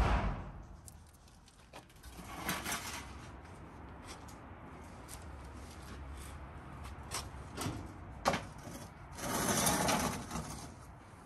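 A metal baking tray scraping across the brick floor of a wood-fired oven as it is pushed in, for about a second near the end. Before it come a few scattered sharp knocks and clinks of metal being handled.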